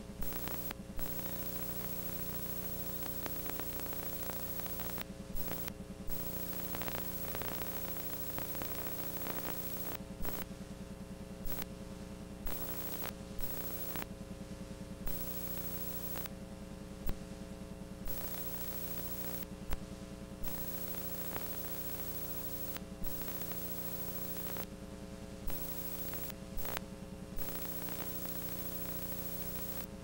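Steady electrical hum over static hiss, broken by brief clicks and dropouts in the hiss every second or two.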